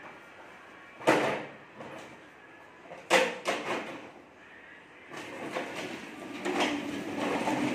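A child's plastic ride-on toy car knocking twice against a tiled floor as it is handled and set down on its wheels, then its plastic wheels rumbling steadily as it rolls across the tiles from about five seconds in.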